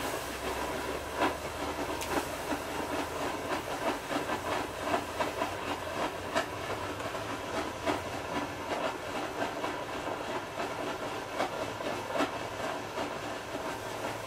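Water boiling and flashing to steam inside a hot steel cannon tube that has just been shrink-fitted and is cooling in water: a steady hiss with irregular crackles and pops.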